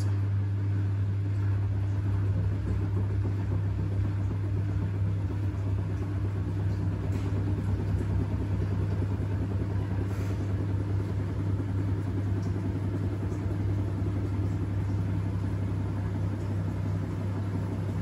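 Front-loading washing machine running a wash phase: a steady low hum as the drum tumbles the laundry through water.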